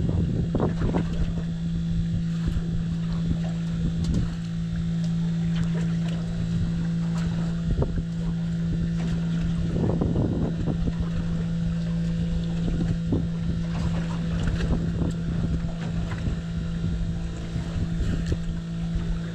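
Boat engine idling with a steady low hum, wind buffeting the microphone, and scattered light knocks on the boat.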